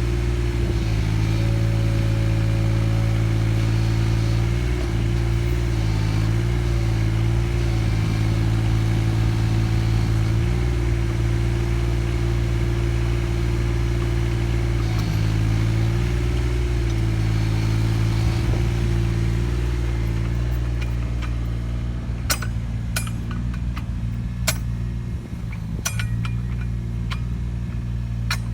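Takeuchi TB219 mini excavator's diesel engine running steadily, its pitch dipping briefly every few seconds as the hydraulics take load driving a cone log splitter. Near the end, a series of sharp cracks and knocks.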